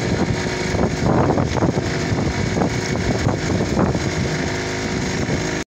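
An engine aboard a fishing boat running steadily with an even drone, over some irregular knocks and rustling.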